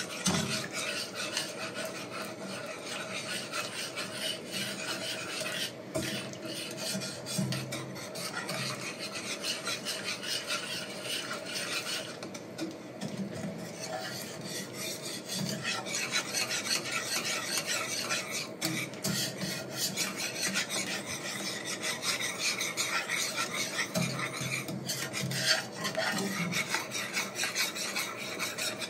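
Wire whisk scraping continuously around the bottom of a pan of milk gravy as it thickens from a butter-and-flour roux.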